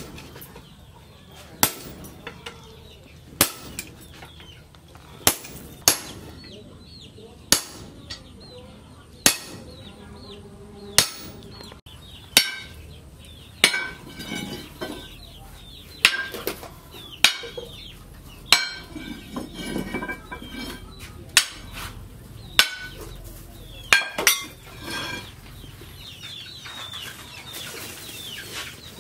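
Sledgehammer blows on a red-hot leaf-spring steel bar lying on an anvil, forging it into an axe head. The sharp strikes come about every one and a half to two seconds and stop a few seconds before the end.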